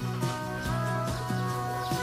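Soothing background piano music, slow held notes with no animal sound.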